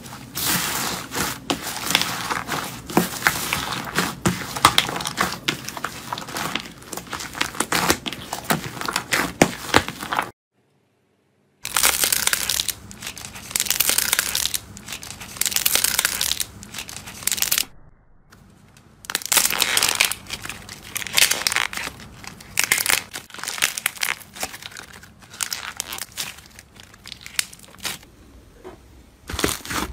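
Hands squeezing, stretching and pressing slime, first a slime packed with foam beads, then thicker slimes: dense crackling and crunching. The sound stops for about a second around ten seconds in, then resumes.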